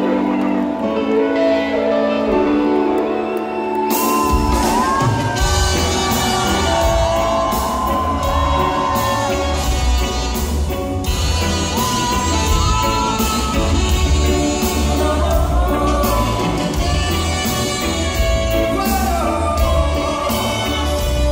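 Live reggae band: sustained chords for about four seconds, then bass and drums come in and the full band plays on, with a lead singer on microphone. Audience members close by shout and whoop.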